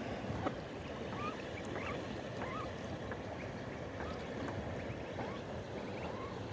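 Ducklings peeping: many short, high squeaky calls, some rising and some falling, several a second, over a steady low rumble.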